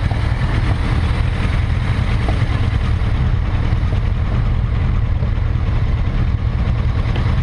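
Motorcycle engines running at idle close to the microphone, a steady low sound that holds an even level throughout.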